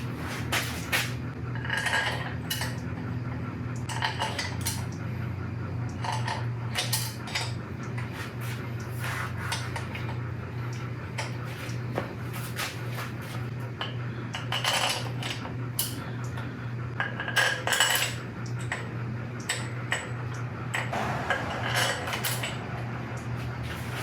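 Scattered metallic clinks and clatter of steel bolts and hand tools being handled during a cylinder head install, over a steady low hum.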